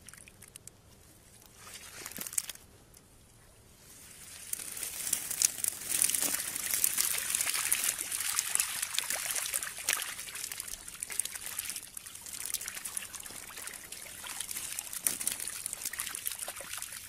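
Water trickling and dripping from a cast net full of small fish as it is emptied onto wet mud, with a dense crackle of many fish flapping on the mud. It becomes loud about four seconds in and keeps on.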